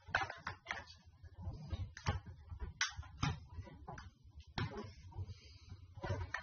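Hard plastic clicks and knocks from a Fisher-Price toy airplane being handled and its buttons pressed, irregular, a dozen or so.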